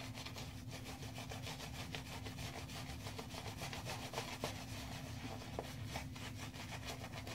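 Synthetic-knot shaving brush scrubbing lather on a stubbled face: a faint, quick, repeated rubbing and bristle-scratching of brush strokes.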